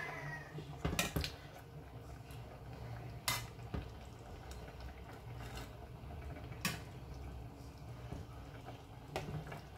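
Metal slotted spatula clinking and scraping against a metal cooking pot while stuffed peppers are lifted out of thick sauce, with several sharp clinks spread through, two close together about a second in.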